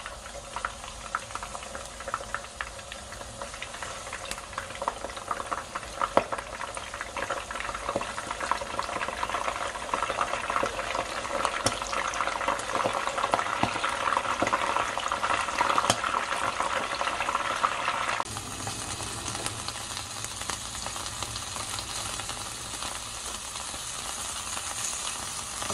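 Abalone and garlic cloves deep-frying in hot oil: a dense sizzle and bubbling full of small pops and crackles that grows louder. About two-thirds of the way through it changes abruptly to a quieter, steadier sizzle of abalone, garlic and walnuts in a lightly oiled frying pan.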